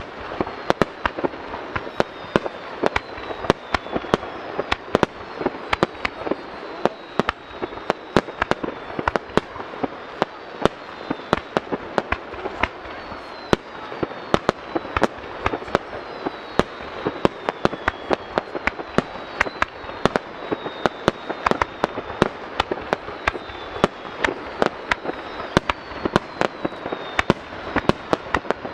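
Aerial fireworks shells bursting in rapid succession: sharp bangs several times a second over a continuous crackle, with high whistles that fall in pitch recurring every couple of seconds.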